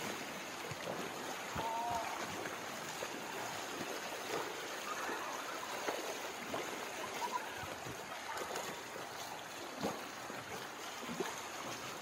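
Floodwater flowing across a paved road and spilling over its edge: a steady rushing wash, with a few faint distant voices.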